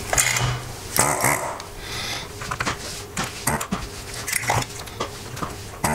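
Light clicks and taps of a hand handling a bare instrument-cluster circuit board on a work mat, with two short voice-like calls, one at the start and one about a second in.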